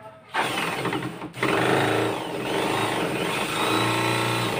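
Electric drill with a hole saw boring the latch hole into the edge of a wooden door. A short first burst, then the drill runs steadily under load for about three seconds as the saw cuts into the wood.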